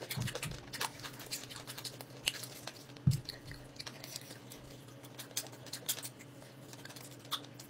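Close-up eating sounds of a man biting and chewing crisp fried fish: irregular small crunches and wet mouth clicks. There is one low thump about three seconds in.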